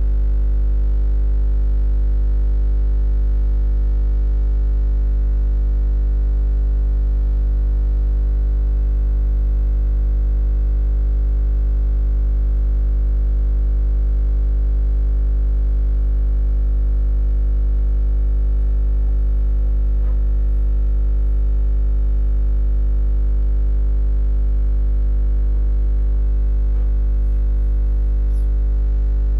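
Steady, unchanging synthesizer drone of the background music track, a low held chord with no beat or change in pitch.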